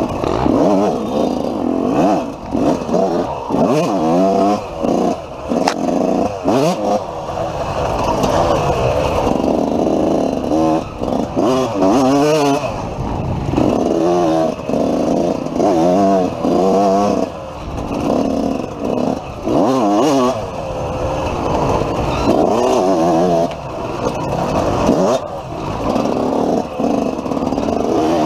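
Dirt bike engine revving hard and easing off over and over as the rider works the throttle along a tight trail, the engine note climbing and falling back every second or two. Some clatter and scraping from the bike over rough ground.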